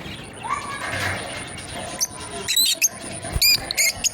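Lovebirds giving short, sharp squeaky chirps, about four of them close together in the second half.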